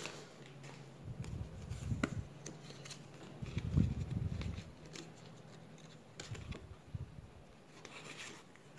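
Faint rustling, rubbing and light scraping of a paper sticker packet and its stickers being handled by hand, with a few small clicks.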